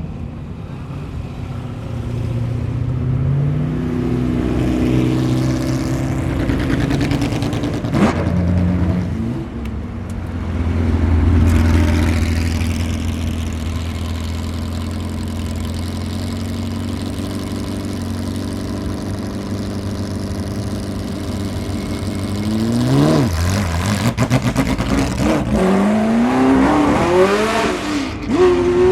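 Porsche 908/3's air-cooled 3.0-litre flat-8 racing engine under hard acceleration, climbing through the gears, with a sharp crack about eight seconds in. Near the end the revs rise and fall quickly several times.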